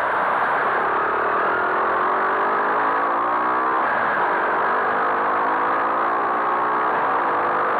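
Skyteam Monkey 125 cc single-cylinder four-stroke engine pulling under load while riding, its pitch climbing, dropping about four seconds in at an upshift, then climbing again, under a steady rush of wind noise on the microphone.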